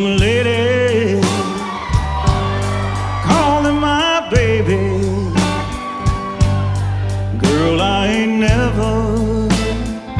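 Live country band playing the instrumental lead-in to a song. Drums keep a steady beat, an electric bass holds long low notes, and an electric lead guitar plays a melody with bends and slides.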